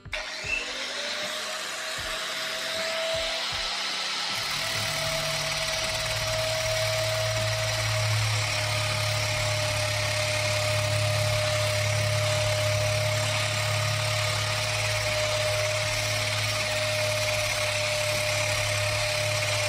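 Edon EP-XND180 1800-watt rotary polisher, fitted with a sanding pad and 220-grit paper, sanding a rough wooden board at speed 3 to 4. The motor spins up with a rising whine in the first second, then runs steadily with a high whine over a low hum.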